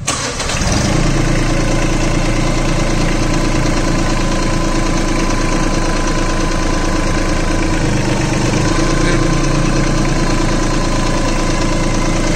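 Massey Ferguson 6028 Max Pro tractor's diesel engine catching in the first second, then running steadily at idle.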